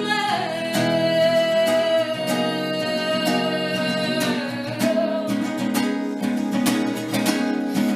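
Acoustic guitar strummed under a singer holding one long note, which slides down at the start and fades about four and a half seconds in while the guitar carries on.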